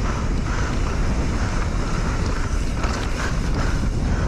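Wind rushing over the microphone and the steady rumble of a mountain bike riding fast down a dirt trail.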